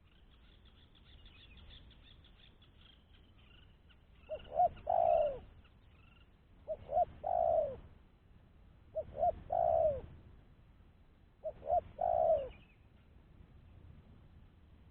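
Spotted dove cooing: four calls about two and a half seconds apart, each two short notes followed by a longer drawn-out coo. Faint high chirping of small birds in the first few seconds.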